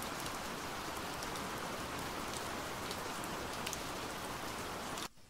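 Steady rain falling, with scattered light raindrop ticks; the sound cuts off abruptly near the end.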